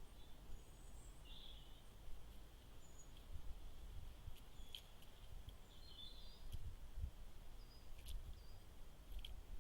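Woodland ambience: small birds chirping in short, scattered notes over a low steady rumble, with a few sharp clicks about five, six and a half, eight and nine seconds in.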